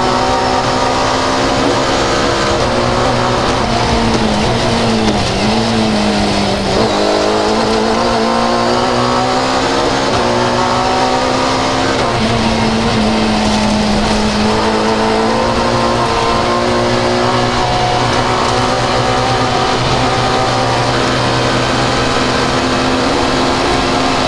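Fiat 131 rally car's engine heard from inside the cockpit, running hard at stage speed. The engine note dips and recovers several times about five seconds in, holds steady through the middle, and dips briefly again near the end.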